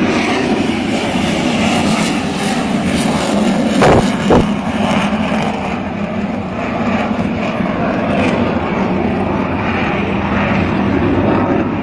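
Military jet aircraft flying overhead: a loud, steady engine rumble that eases off slightly near the end. Two brief thumps about four seconds in.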